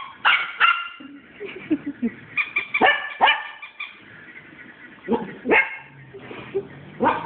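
Small dogs barking in sharp pairs of barks, three times, with a last single bark near the end. A brief quick run of short high-pitched pulses comes between the first two pairs.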